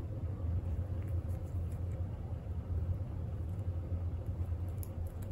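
Steady low background hum, with a few faint light ticks near the end.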